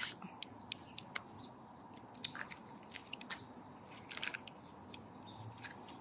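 Quiet outdoor ambience: a low steady hiss with scattered, irregular soft clicks and crunches.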